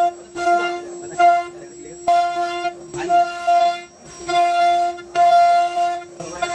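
CNC router spindle whining at one steady pitch as its bit carves a relief pattern into a wooden board. The whine swells and drops every second or so as the cutter bites into the wood, with a few short knocks.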